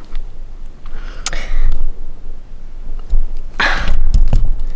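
Handling and rustling noise right at a phone's microphone: two loud noisy bursts, about a second in and again near the end, over a low rumble, with a few small clicks.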